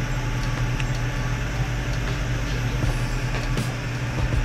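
High-speed 6500 RPM cooling fan of a Bitaxe SupraHex Bitcoin miner running steadily: an even whir with a low hum beneath it.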